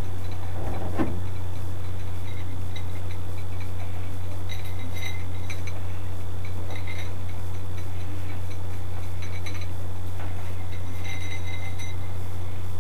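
Small metallic clinks and ticks of a steel chain and quick link being handled as a crescent wrench is fastened to the chain's end, scattered irregularly through the second half, over a steady low hum.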